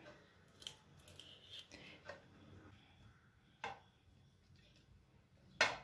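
Faint scraping and small clicks of a kitchen knife working along adamant creeper (pirandai) stems over a plate, stripping off the stringy fibres, with a sharper tap about three and a half seconds in and another near the end.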